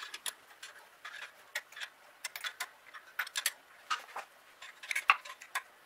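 Hand tools clicking and clinking on metal as a fuel pump is bolted onto the engine block. The sharp clicks come irregularly, a few in quick clusters, and the loudest falls about five seconds in.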